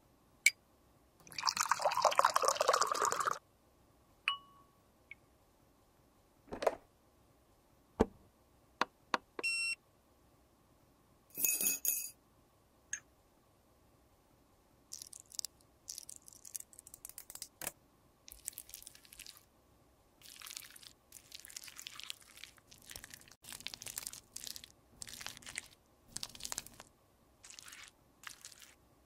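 Close-miked sounds of cosmetics being reworked: a rushing noise lasting about two seconds near the start, scattered clicks and taps, two clinks with a brief ringing tone around the middle, then a long run of short scraping, crackling strokes.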